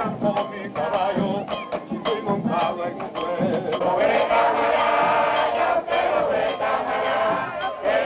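Music with a steady percussive beat, joined by a group of voices singing together from about four seconds in.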